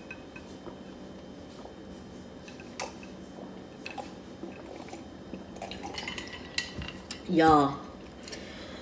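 A person drinking from a glass: quiet sips and swallows, with a few faint clicks and light clinks.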